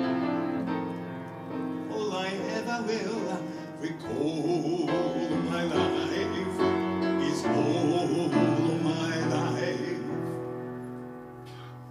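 A male vocalist sings a slow ballad with held, vibrato-laden notes, accompanied by a grand piano. The voice and piano grow quieter over the last couple of seconds.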